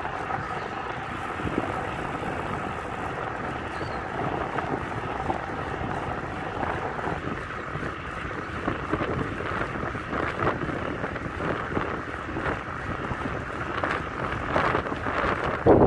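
Steady road and wind noise of a moving vehicle, with wind buffeting the microphone and a few louder gusts near the end.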